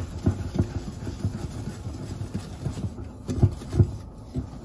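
Wire whisk stirring dry flour, sugar and salt in a glass bowl, its tines tapping and scraping against the glass in uneven light knocks, about two to three a second.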